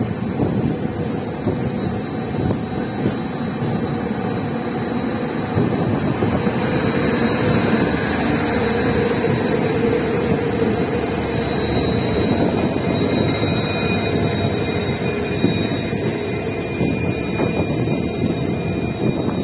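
Express passenger train running at speed, heard from an open coach door: a steady rumble of wheels on rail mixed with rushing air. The hiss eases about twelve seconds in, and a faint high whine shows later.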